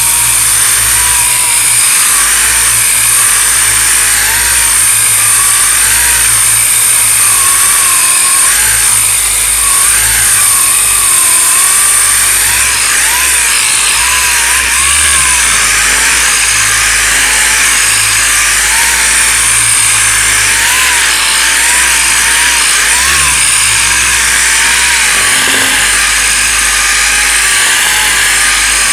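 8-inch orbital sander running continuously with 40-grit paper, sanding down short-strand fibreglass-reinforced body filler on sheet metal. A steady loud hiss with a motor pitch that wavers slightly as the pad is worked over the panel.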